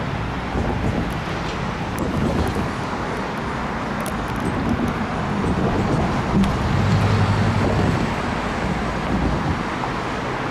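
Steady rumble of passing vehicles, swelling for a couple of seconds just past the middle, with a low hum.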